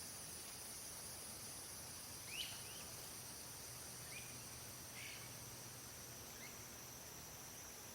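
Faint, steady high-pitched insect drone with a handful of short bird chirps scattered through it, the loudest about two and a half seconds in.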